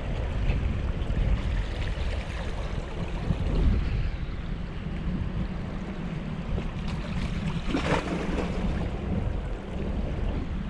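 Small waves washing and swirling against jetty rocks, with wind buffeting the microphone as a steady low rumble. One brief, louder splash about eight seconds in.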